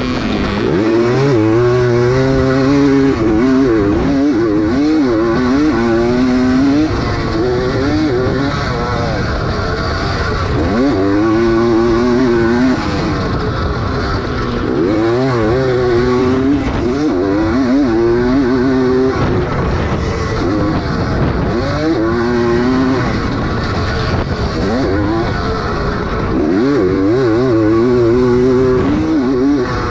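Vintage 250 motocross bike's engine, heard from onboard, revving hard under race throttle: its pitch climbs, drops and climbs again every few seconds as the rider accelerates and shifts. A steady rush of wind noise runs under it.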